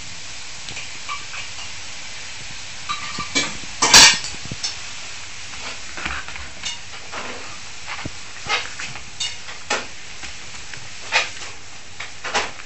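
Two dogs play-fighting on a tatami floor, one on its back under the other: irregular short snaps and scuffles, the sharpest about four seconds in.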